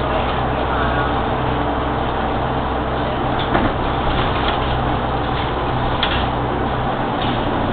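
SOR city bus heard from inside while driving: the diesel engine's steady low hum under road and cabin noise, with short rattling knocks from the interior fittings twice. Near the end the low engine hum falls away as the driver eases off.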